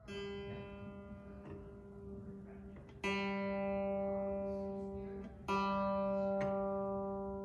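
A string of an 1874 John Broadwood grand piano plucked by finger three times while it is tuned with a tuning hammer on its pin; each pluck rings on at the same steady pitch.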